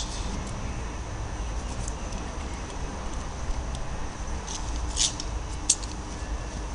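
Hands working in dry leaf litter and soil while planting a tree: a few short crisp rustles and ticks about two-thirds of the way through, over a steady low outdoor rumble.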